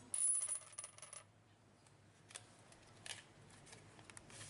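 Small metal parts clinking and rattling against each other for about a second, then a few light metallic clicks.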